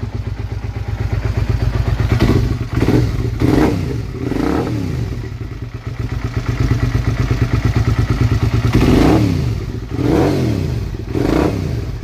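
Suzuki SV V-twin motorcycle engine idling, revved up and back down in short throttle blips several times. It is running with the faulty clutch-lever kill switch bridged by a jumper wire.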